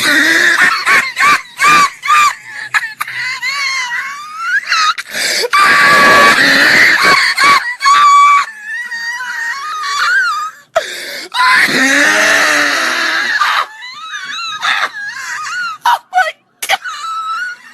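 A person laughing hysterically: high-pitched, squealing, wheezing laughter in long breathless fits, with short breaks for breath.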